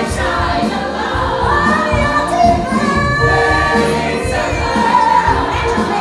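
A live musical-theatre song number: a woman sings lead into a microphone, with the ensemble singing as a choir over the show's musical accompaniment.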